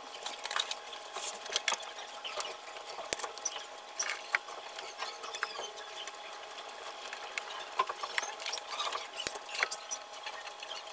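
Electrical tape being pulled off the roll and wrapped around spliced wires: an irregular run of crackling, scratchy rustling and small clicks.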